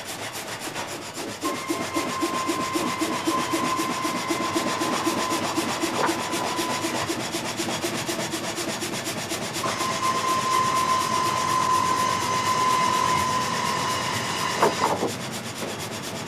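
Multi-blade frame saw (gang saw) cutting through a log, its blades going up and down with a rhythmic chugging. A steady whine comes in twice, and there is a sharp knock near the end.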